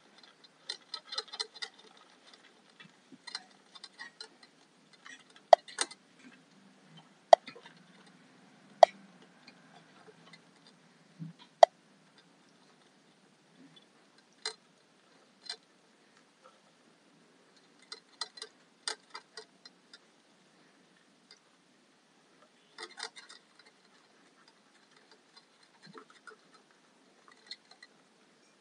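Metal ball-valve spout of a hamster water bottle clicking as baby hamsters lick and bite at it: irregular clusters of light ticks, with a few sharp, louder single clicks in the first half.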